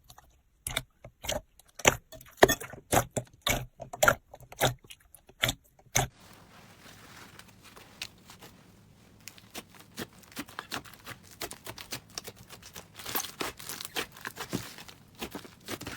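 Slime being squeezed and worked by hand, making sharp crackling pops and clicks. About six seconds in it changes to a denser, softer crinkling and crunching, busier towards the end.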